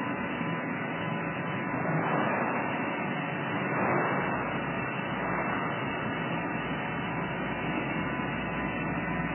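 DOIMAK RI-C internal grinder running: a steady rushing noise that swells briefly about two and four seconds in.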